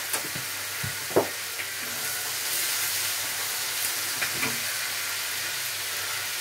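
Minced beef sizzling in a frying pan over a gas flame, a steady hiss, as it is stirred with a wooden spatula. A few short knocks, the loudest about a second in.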